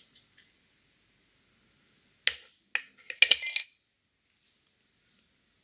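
Small metal parts of a Fichet lever lock clinking as a lever is worked out of the lock case: a sharp clink about two seconds in, another just after, then a quick rattle of clinks about a second later.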